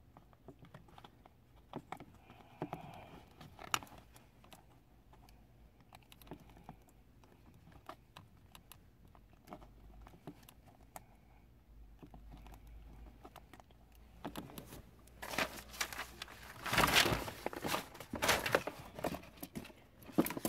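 Scattered light clicks and taps, then several seconds of louder rustling and crinkling near the end: hands handling wiring and plastic under a car's dashboard.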